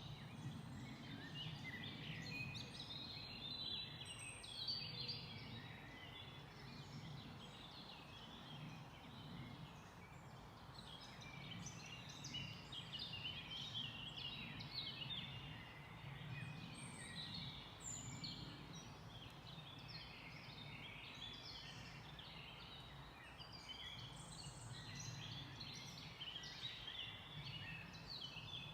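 Forest bird chorus: many small birds singing and chirping at once, a dense stream of short high calls, over a low steady background rumble.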